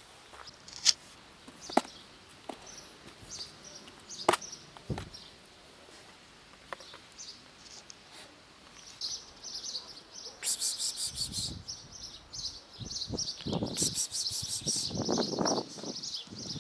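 Small birds chirping in quick, rapidly repeated bursts, busiest from about ten seconds in. Louder single sharp clicks come twice about a second apart near the start and once more around four seconds in.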